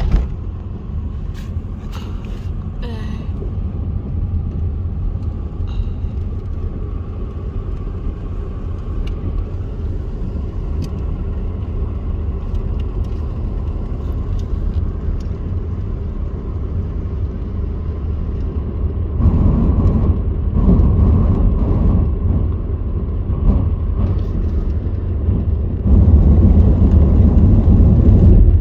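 Steady low rumble of a moving vehicle heard from on board, with road and wind noise. It grows louder for a couple of seconds about two-thirds of the way through, and again near the end.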